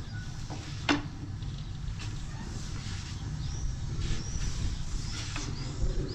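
A long thin wooden rolling pin working flatbread dough on a wooden board, with one sharp knock of wood on wood about a second in. Small birds chirp briefly several times over a low steady rumble.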